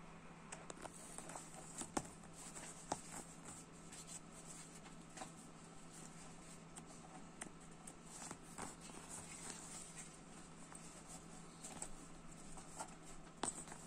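Faint handling noises of a fabric lanyard being picked up and moved, with scattered light clicks from its metal buckle and clip hook, over a steady faint hum.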